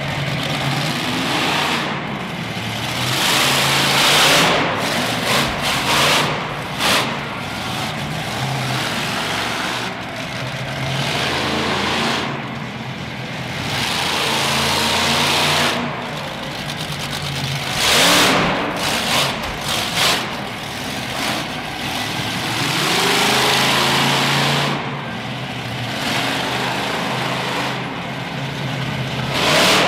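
Monster truck engine revving hard again and again, surging to loud peaks every few seconds and dropping back between them.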